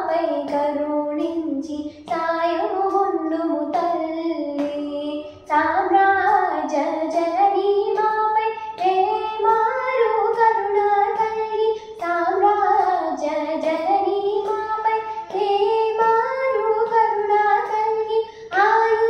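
A girl singing a devotional song solo, one voice carrying the melody up and down in long phrases with short pauses for breath between them.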